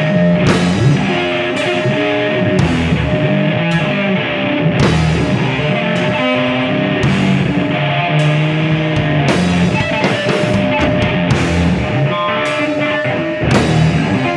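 A rock band playing live: electric guitar and bass guitar holding notes over a drum kit, with cymbal hits about once a second.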